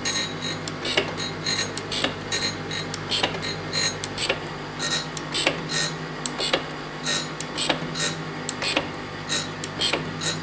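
Jones & Shipman 540 surface grinder running: a steady low hum from the wheel spindle and machine, with frequent irregular sharp metallic clicks and ticks, about two or three a second, as the table traverses and the wheel grinds lightly on a steel part.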